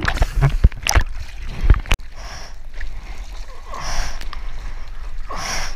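Water splashing and sloshing against a surfer's action camera as he paddles a surfboard through choppy water. Several sharp knocks of water in the first two seconds, then two rushes of water from paddle strokes about a second and a half apart.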